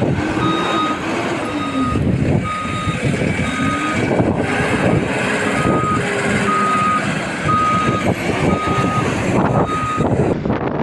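Reversing alarm of a heavy diesel work machine beeping about once a second, a single high tone, over the machine's engine running and revving up and down.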